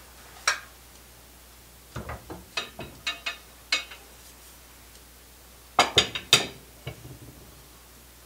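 Metal hand tools clinking and knocking as they are handled at a workbench: a single sharp clink, then a run of knocks, then a louder cluster of three clanks near the end.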